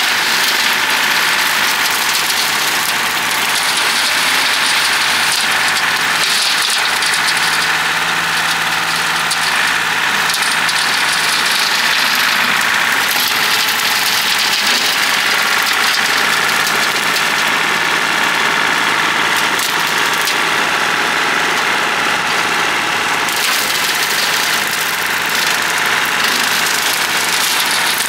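John Deere 790 compact tractor's three-cylinder diesel engine running steadily, with the Bush Hog BH215 rotary cutter it powers.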